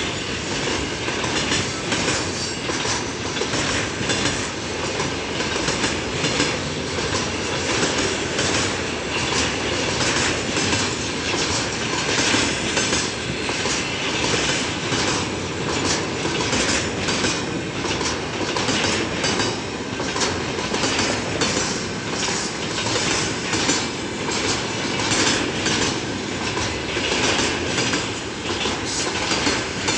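Loaded freight train wagons rolling steadily past, their wheels clattering over the rail joints in a quick, continuous rhythm, with a faint squeal of wheels on rail.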